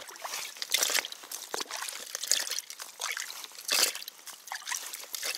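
Water trickling, dripping and splashing in an ice-fishing hole as a hand reaches into the hole and lifts something out, in irregular small splashes.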